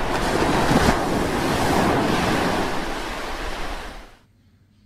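Rushing noise with no pitch from a logo intro sound effect, swelling slightly a couple of times and fading out about four seconds in.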